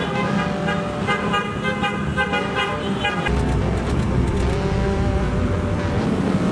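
Motor scooter horns honking in a string of short toots as a convoy of Honda PCX scooters sets off, giving way about three seconds in to a steady low rumble of engines and traffic heard from inside a following car.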